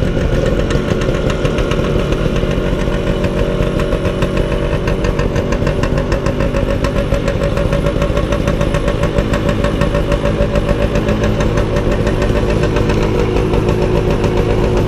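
Motor scooter engine running steadily under way, a rapid even firing beat, with wind rush on the microphone.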